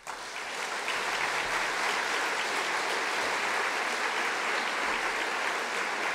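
Large audience applauding, the clapping building over the first second and then holding steady.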